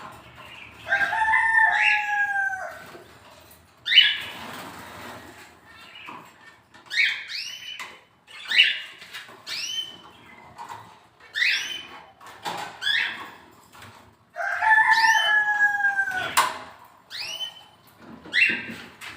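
A rooster crowing twice, each crow about two seconds long, the second coming some thirteen seconds after the first. Short, sharp bird chirps repeat in between.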